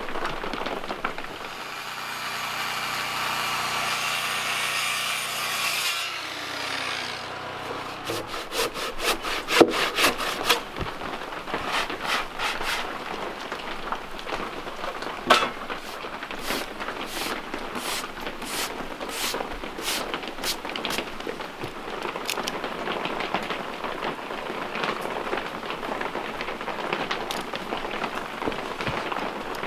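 Sawing into a timber-frame post or beam. A steady cutting run stops about six seconds in, followed by a long series of quick, irregular rasping strokes and knocks.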